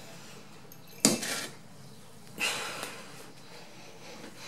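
Two clatters of kitchenware against the stainless steel brewing kettle, about a second and a half apart, the second with a longer rattling tail, as bittering hops are tipped in from a glass mug at the start of the boil.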